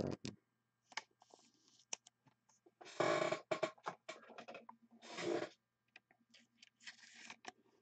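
Trading card being handled and slid into a soft plastic penny sleeve and a rigid plastic top loader: small clicks and short plastic rustles and scrapes, the two loudest about three and five seconds in.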